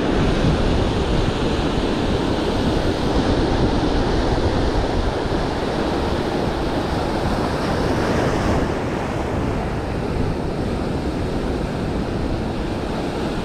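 Ocean surf breaking and washing up the shore at close range: a steady rush of water with a deep rumble underneath.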